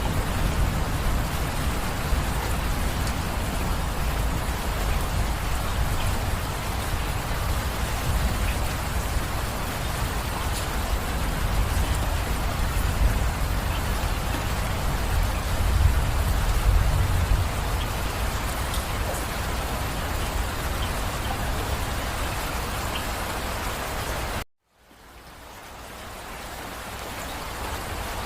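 Steady heavy rain, a dense hiss of drops over a deep low rumble. About 24 seconds in the sound cuts out abruptly for a moment and then fades back up.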